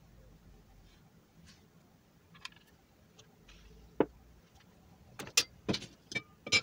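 A glass baking dish knocks once against a stone countertop as it is pushed aside. Then come several sharp clinks and knocks as a pan with a glass lid is set down and the lid is handled.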